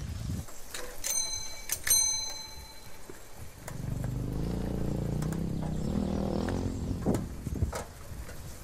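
Bicycle bell on an old roadster bicycle rung twice about a second in, each ring clear and fading quickly. Then a low, steady engine hum from a motor vehicle runs for about three seconds past the middle, followed by a few light clicks.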